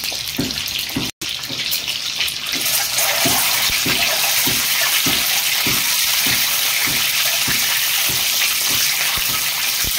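Slit boiled eggs frying in hot mustard oil in an aluminium kadai: a loud, steady sizzle, with short pops about twice a second. The sound breaks off for an instant about a second in.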